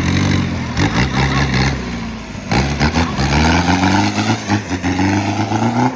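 Off-road 4x4's engine revving hard under load, its pitch climbing, cut back sharply about two and a half seconds in, then climbing again. Scattered knocks and clatter run under it.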